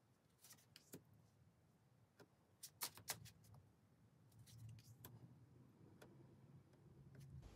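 Near silence with a few faint, short clicks, the clearest a cluster around three seconds in, followed by a soft low rustling near the end.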